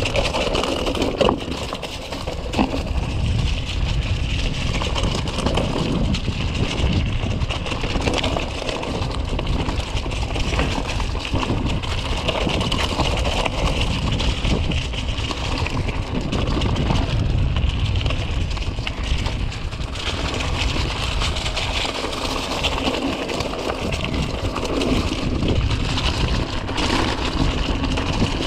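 2018 Giant Stance 2 full-suspension mountain bike ridden on a dirt trail: a steady rumble and rattle from the knobby tyres and frame over the ground, mixed with wind on the microphone.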